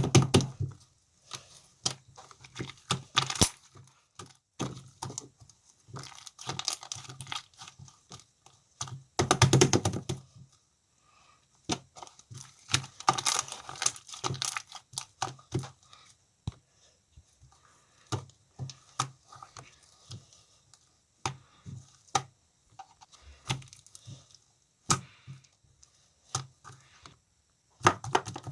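Slime being squished and poked by hand, making irregular clicks and crackling pops, with a few denser, louder bursts of squishing.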